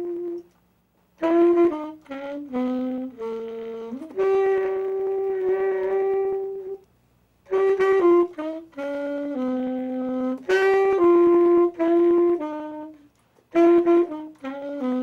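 Music: a solo wind instrument playing a slow melody of held notes, in phrases separated by short pauses.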